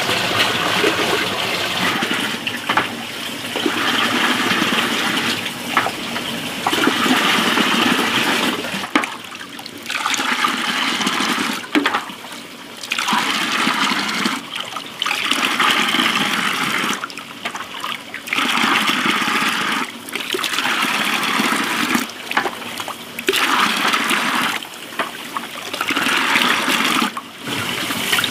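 Water running and splashing into a metal basin, a steady rush in stretches of one to three seconds with short breaks between them.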